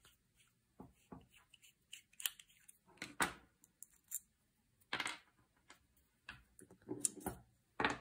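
Small steel parts of a Beretta EELL S04 shotgun lock being worked by hand and with a small screwdriver: scattered light metallic clicks and short scrapes, the loudest about three and five seconds in.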